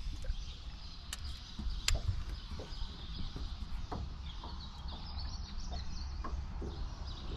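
Wind noise rumbling on the microphone, with a few sharp clicks scattered through and faint bird chirps around the middle.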